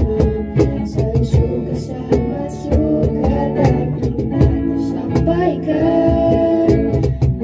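A vocal group of girls singing a song in unison, accompanied by guitar and a drum kit keeping a steady beat.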